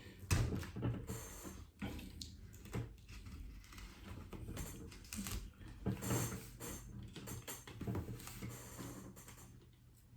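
Plastic playing card scraping and clicking irregularly along the edge of an iPad mini's screen as it is worked under the glass to separate the heat-softened adhesive.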